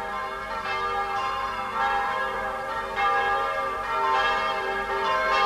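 Bells pealing, struck one after another, each tone ringing on under the next.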